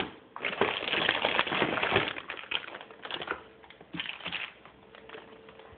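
Clear plastic packaging bag crinkling and rustling as a toy is pulled out of it. It is densest in the first two seconds, then thins to scattered crackles.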